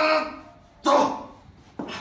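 Voices shouting during a heavy barbell back squat: a strained, rising shout ends just after the start as the lifter drives up out of the hole, then two short sharp shouts come about a second apart.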